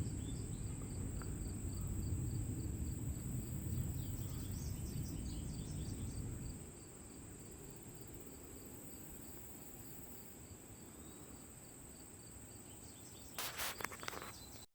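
Low rumble of a distant jet aircraft, taken for a military plane, that fades out about six and a half seconds in. Crickets chirp with a steady high insect whine throughout, and a brief clatter comes near the end.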